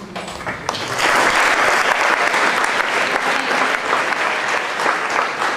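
An audience applauding. A few scattered claps come first, then full applause from about a second in.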